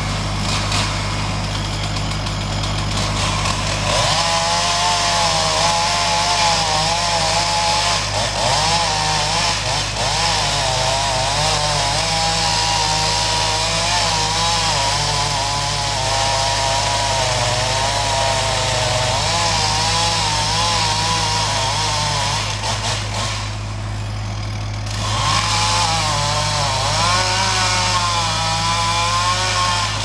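Gas chainsaw cutting into a large ash trunk. For the first few seconds it runs at a lower, steady speed. Then it goes to full throttle under load in the wood, its pitch wavering as the load changes; about three-quarters of the way through it eases off briefly, then bites in and cuts again.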